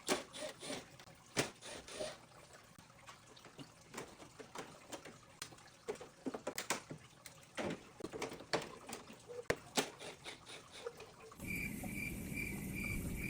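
Water dripping and spattering in irregular sharp drops while an air conditioner is being washed. About eleven seconds in, a louder steady rushing noise starts, with a high whine pulsing a few times a second.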